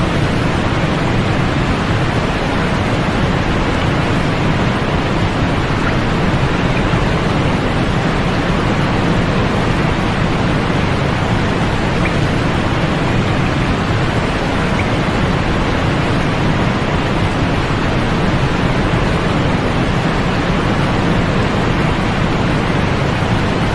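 Continuous white-noise sleep track: a steady, unchanging hiss, fuller in the low and middle range with little treble, with no rhythm or breaks.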